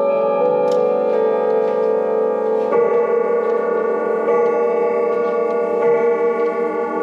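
Sligh grandfather clock chiming: a slow sequence of ringing chime notes, a new strike about every one and a half seconds, each left ringing under the next. The movement's pendulum tick sounds faintly underneath, showing the clock is running.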